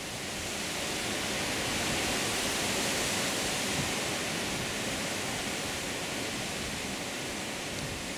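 Strong wind of about 20 mph blowing: a steady rushing noise that swells during the first two seconds and eases slightly later on.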